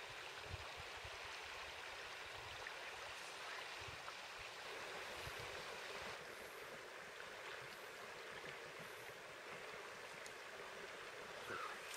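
Faint, steady rush of river water flowing over stones in shallow riffles.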